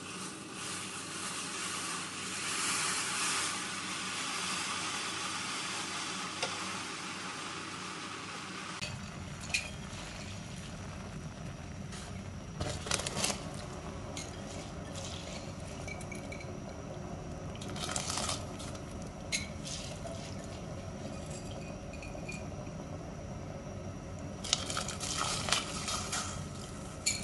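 A steel pot of milk and rice-washing water heating to a boil on a gas burner: a steady hiss and bubbling, with a few scattered knocks. Near the end, soaked rice and moong dal are dropped in by hand with a short patter of splashes.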